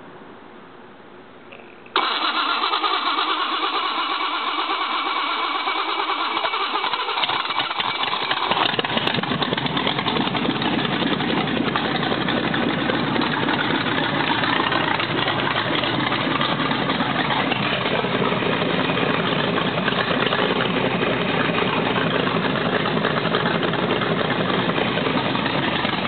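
Chevy 350 small-block V8 with 12.5:1 compression, a big cam and headers, run for the first time since 1999: it starts suddenly about two seconds in and then keeps running loud and steady, with a deeper low end from about eight seconds in.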